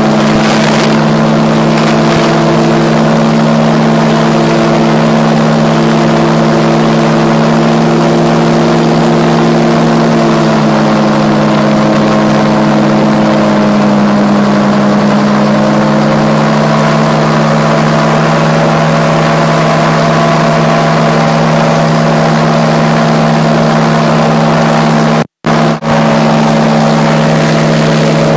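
RAF 2000 gyroplane's pusher engine and propeller running steadily in flight, heard from the cockpit. The pitch dips slightly partway through and comes back up. The sound cuts out twice for a moment about three seconds before the end.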